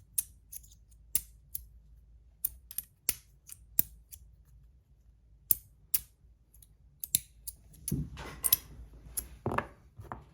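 Brass magnetic micro slider fidget being slid back and forth, its slide snapping into place with sharp metallic clicks at irregular intervals, about one or two a second. Near the end, a couple of duller rustling handling sounds.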